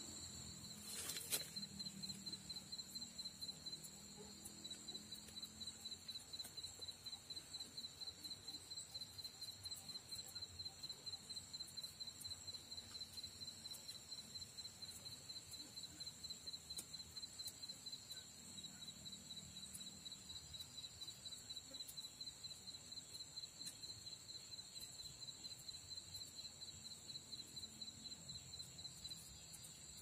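Insects chirring in a faint, steady, high-pitched trill that pulses a few times a second.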